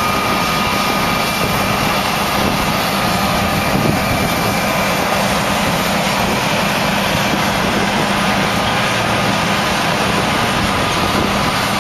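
Harvest machinery running steadily: a loud, even engine drone with a constant high whine over it.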